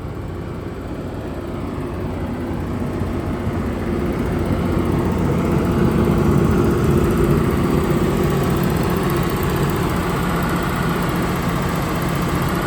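2005 John Deere 200C LC excavator's six-cylinder diesel engine idling steadily, growing louder over the first six seconds and then holding level. The seller says it may have an injector giving it a little trouble, but that it runs okay.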